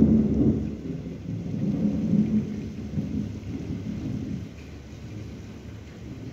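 A thunderclap breaks in suddenly and rumbles on deep and low for about four seconds before dying away, over the steady hiss of falling rain.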